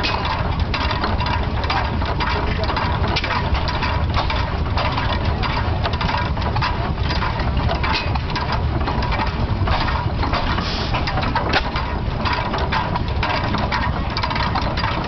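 16 hp Trygg open-crank hit-and-miss stationary engine, a petrol-paraffin engine, running at very low speed: a steady low rumble with irregular ticking and clicking. No single firing stroke stands out.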